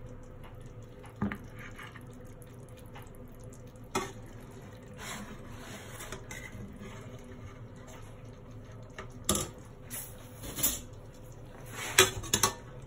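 A few scattered metal clinks and knocks against a stainless steel cooking pot as stuffed round courgettes are lifted out onto a plate, with a quick cluster of the loudest knocks near the end.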